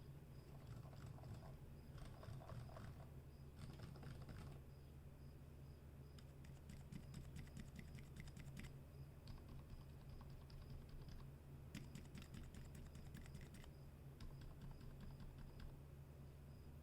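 Typing in bursts on a custom 60% mechanical keyboard with lubed Gateron Silent Black linear switches, a coated steel plate and a rosewood case: faint, damped keystrokes in quick runs with short pauses between them.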